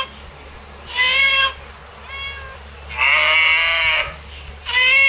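A cat meowing over and over: short, high meows a second or two apart, with one longer, drawn-out meow about three seconds in.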